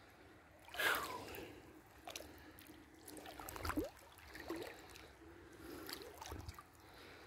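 Faint sloshing of creek water as a person wades slowly through it. There is a louder swish about a second in, then a few small splashes.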